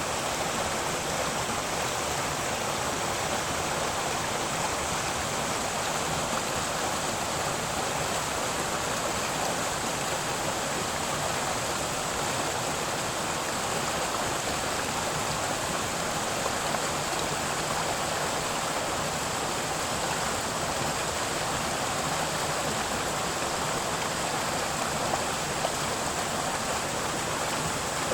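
Steady rushing of a mountain stream and waterfall, even and unbroken.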